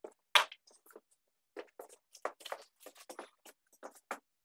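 A run of short, irregular knocks and scuffs from a person moving about at a chalk blackboard, about a dozen in quick succession, the strongest just under half a second in.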